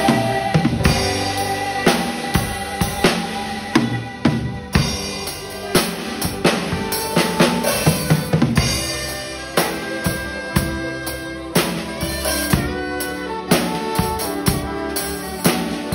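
Live church worship band playing a song: drum kit with regular snare, kick and cymbal hits over bass and guitars, with a congregation singing along.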